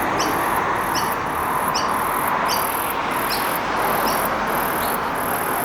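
Insects chirping in a steady rhythm: a high pulsing buzz with a short chirp about every three-quarters of a second, over a steady background hiss.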